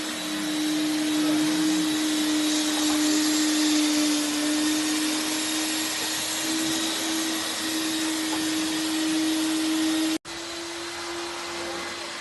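Vacuum cleaner running steadily with a constant hum and hiss. It cuts out abruptly about ten seconds in and comes straight back a little quieter.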